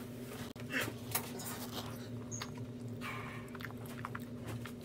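A person biting and chewing a forkful of food, with small wet mouth clicks and a few short rustles over a steady low room hum.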